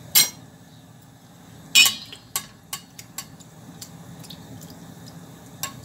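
A metal spoon clinking and tapping against a stainless steel pot while ladling frying oil over a piece of dough. Two sharp clinks come first, then a run of lighter taps.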